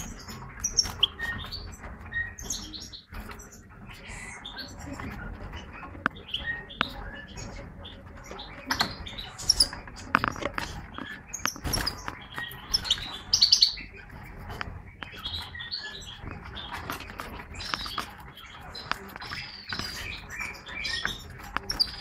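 European goldfinches chirping: many short high calls scattered throughout, busiest about two thirds of the way in, with wing flutters and a few light clicks as the birds move about the cage.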